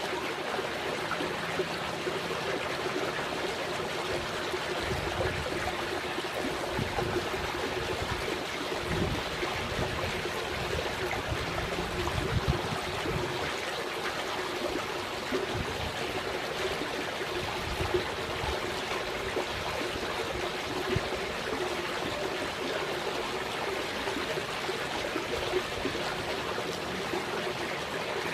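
Steady trickling, running water. In the middle there are low rumbling gusts of wind on the microphone.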